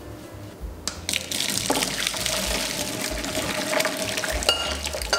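Hot water and udon noodles poured from a saucepan into a metal mesh colander, the water gushing and splashing through for about three and a half seconds before tapering off.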